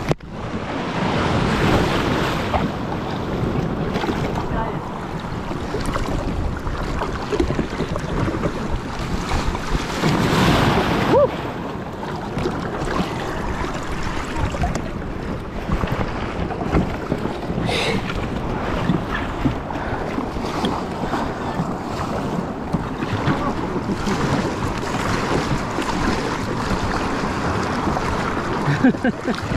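Sea water washing and lapping against a kayak, with wind blowing across the microphone.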